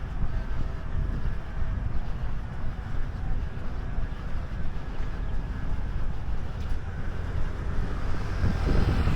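Steady low wind rumble buffeting the microphone of a moving body-worn camera.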